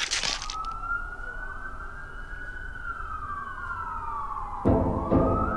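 Intro sound effect: a single siren-like wail that rises slowly and then falls away over about four seconds, after a brief noisy whoosh at the start. Loud music with a deep drum comes in near the end, with the wail starting to rise again.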